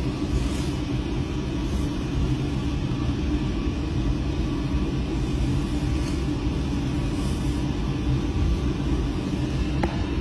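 Steady low rumble and hum of machinery inside a deep-sea submersible's cabin, with a constant droning tone and no sudden changes.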